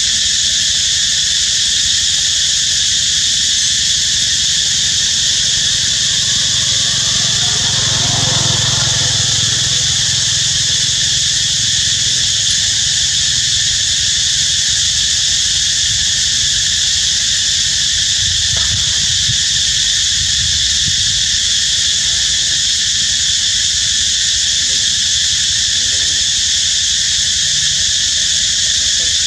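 Dense insect chorus droning steadily at a high, unchanging pitch. A faint low rumble swells and fades about eight seconds in.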